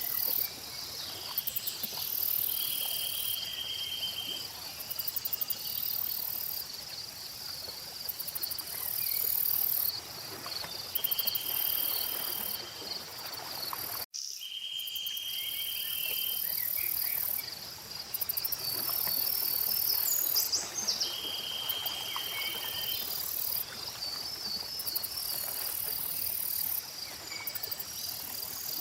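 A chorus of crickets and other insects: a steady pulsing chirp, a higher buzzing chorus that comes and goes, and short even trills recurring every several seconds, with a few brief bird chirps in the second half. The sound drops out for an instant about halfway through.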